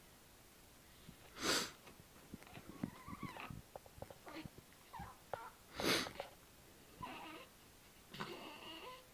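A baby hiccuping twice, about four seconds apart. Between and after the hiccups come short high-pitched fussing squeaks and coos.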